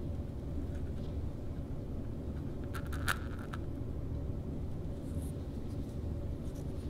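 Steady low hum of workshop background noise. About three seconds in there is one sharp click while a plastic syringe is filled with epoxy from a plastic mixing cup.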